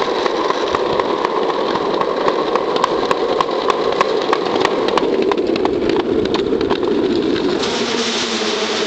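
Hard plastic wheels of a Plasma Car ride-on toy rolling fast over a concrete path: a steady rumbling rattle with many small clicks. The sound changes near the end as the car rolls onto a footbridge.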